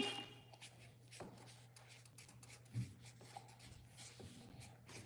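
Faint scratching of a pen drawing on paper, with one soft knock about three seconds in.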